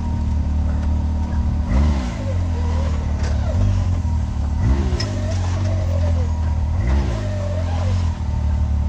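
Off-road vehicle's engine running at low speed, revving up and dropping back three times, about two to three seconds apart.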